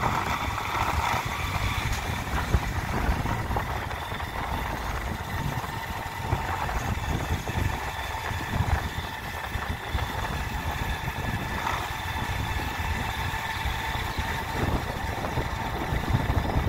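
Motor vehicle engine running steadily on the move: a continuous low rumble with a faint steady whine above it.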